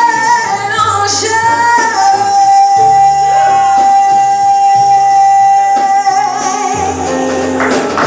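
A live jazz vocal performance with bass and drums: a woman singing, holding one long note for about four seconds in the middle over bass notes, with cymbal strokes near the end.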